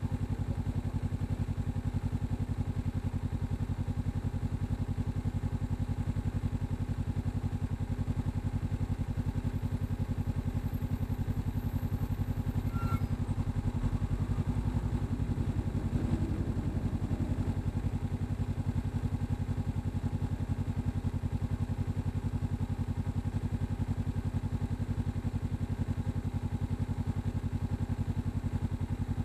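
Kawasaki Ninja 300's parallel-twin engine idling steadily with an even low pulse.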